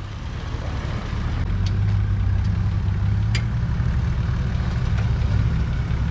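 An off-road four-wheel-drive's engine running steadily at low revs while crawling over rock, a low rumble that grows a little stronger about a second in. A few faint sharp clicks sound over it.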